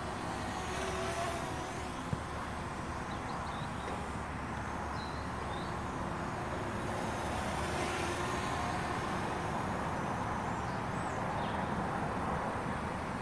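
Small brushless quadcopter (MJX Bugs B7) flying low: a steady motor and propeller whine with a few faint wavering tones, over a constant hiss.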